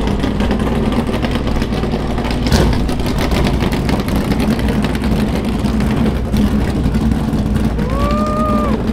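Loud, steady engine drone with a sharp knock about two and a half seconds in, and a short pitched tone that rises and then falls near the end.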